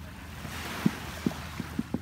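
Surf washing on a sandy shore, with wind rumbling on the microphone and a few soft low thumps in the second half.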